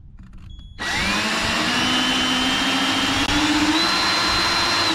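Electric drill starting about a second in and running for about four seconds, its whine rising in pitch, as the rivet removal tool's bit drills into the head of a trailer rivet. It stops at the end.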